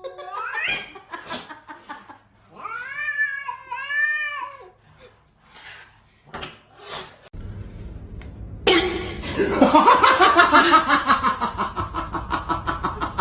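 A cat meowing: a rising call at the start, then two long, drawn-out meows a few seconds in. A few clicks follow, and from about nine seconds in there is loud laughter.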